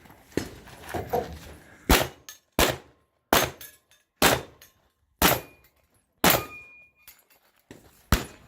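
A string of about eight pistol shots, most of them roughly a second apart, the loudest from about two seconds in. A short ringing tone follows two of the shots.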